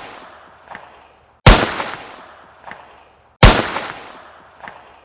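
Gunshots about two seconds apart, each a sharp bang with a long fading tail and a fainter crack about a second later. The bangs are identical, so this is one gunshot sound effect repeated.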